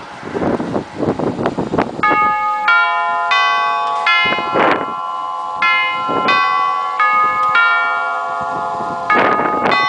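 Chime tubes of a Herschede Model 217 nine-tube hall clock playing the three-quarter-hour chime: a melody of struck notes at a steady pace, each ringing on under the next. About two seconds of clattering come before the first note.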